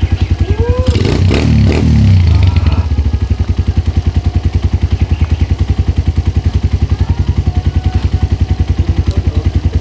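Suzuki Thunder 125's single-cylinder four-stroke engine idling with a steady, even exhaust beat through a newly fitted muffler, revved up briefly about a second in.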